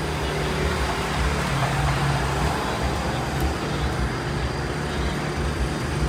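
A steady low mechanical hum and rumble, like a running engine or nearby motor traffic, with no distinct events.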